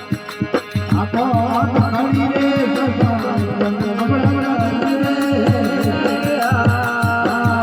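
Rajasthani desi bhajan music: a hand drum keeps a fast, even beat under a steady drone and a winding melody.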